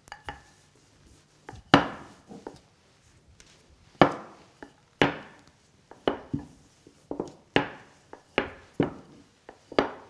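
A series of sharp, irregular taps and knocks on a hard work surface while pastry dough is shaped and handled, sparse at first and coming faster in the second half.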